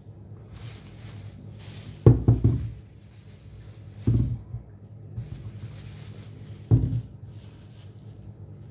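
Small potatoes knocking against each other and the counter as they are gathered by hand into a plastic bag: three short clusters of dull knocks, about two seconds apart.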